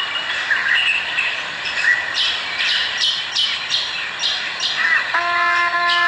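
Birds calling in the dawn chorus: squawks and chirps, with a run of quick harsh calls in the middle. About five seconds in, a long steady horn-like note begins and holds.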